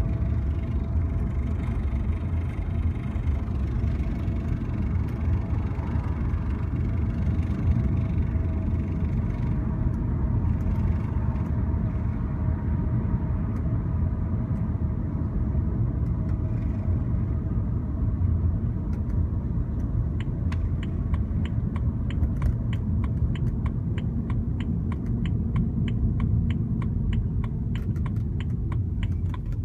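2007 BMW 328i being driven: steady low road and engine rumble, with a regular ticking from the driver's side at about three to four ticks a second that comes in plainly about two-thirds of the way in.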